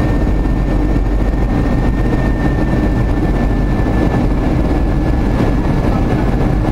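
Steady cabin noise inside a Boeing 737-400 in flight: a low, even rumble of airflow and its CFM56-3 turbofan engines, with a faint high whine that drifts slightly lower.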